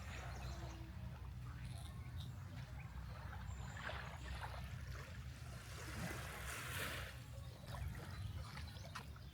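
Faint outdoor beach ambience: a low, steady rumble with soft water sounds.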